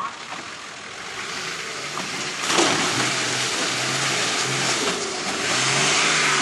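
Engine of an off-road 4WD working under load as it climbs a rocky gully, getting louder about two and a half seconds in and again near the end.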